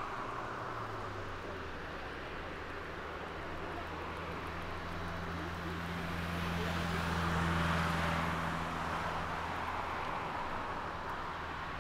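Jet engines of a Boeing 747-400 freighter running as it rolls on the runway: a low steady hum under a whooshing hiss that swells to its loudest about two-thirds of the way through, then eases slightly.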